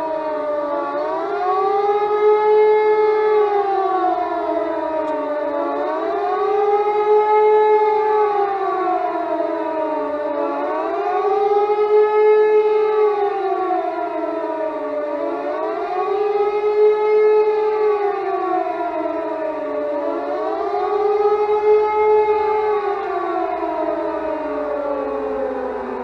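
Civil defence warning siren sounding its annual test: a loud wail rising and falling in pitch about every four to five seconds, five times over, then starting to wind down near the end.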